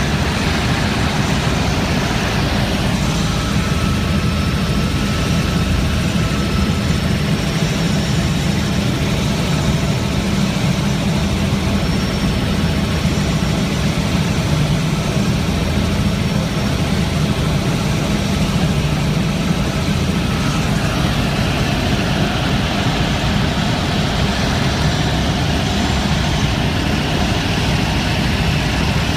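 Helicopter engine and rotor noise heard from inside the cabin in flight, a loud, steady drone.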